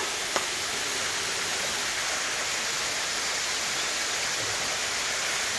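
Steady rush of water falling down a pool's stone water-wall feature. A single sharp click about a third of a second in.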